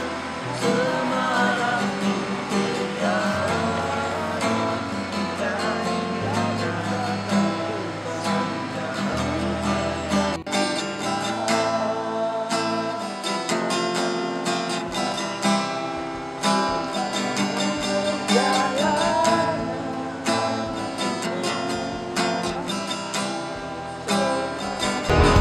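Acoustic guitar music: strummed chords with held low notes under a wavering lead melody.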